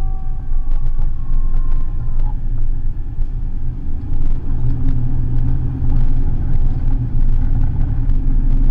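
Fire engine siren winding down, its pitch falling slowly until it dies out about two seconds in, as it is switched off. The truck's diesel engine rumbles in the cab, growing louder from about halfway as the truck pulls away, with cab rattles and clicks over it.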